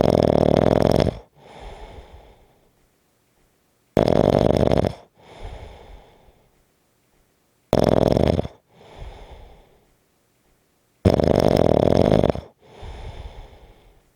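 Snoring in a steady rhythm: four loud snores, about one every three and a half to four seconds, each followed by a quieter breath.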